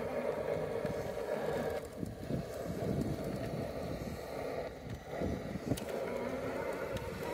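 Axial SCX6 RC rock crawler's electric motor and gearbox whining as it crawls over a boulder, with scuffs and knocks of the tyres and chassis on the rock. The whine drops away about two seconds in and comes back near the end as the throttle is worked.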